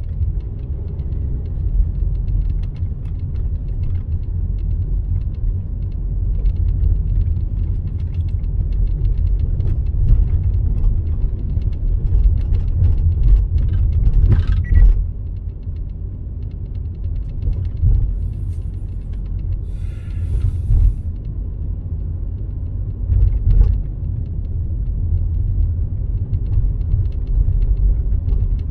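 Steady low rumble of a car driving, heard from inside the cabin: tyre and engine noise, with a few brief louder knocks and a short hiss along the way, the sharpest knock about halfway through.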